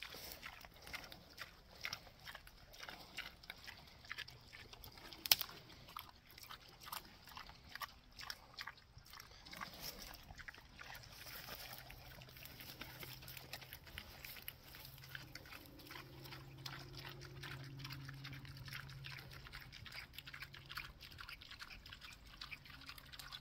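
Pigs eating grain feed off the ground: rapid crunching and chewing, with one sharper loud click about five seconds in.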